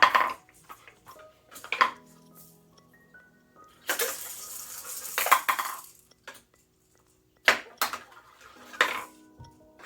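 Hard toy balls knocking and rattling against a wooden ball-drop box: a handful of separate sharp clacks, and a longer rattle about four seconds in, with faint background music.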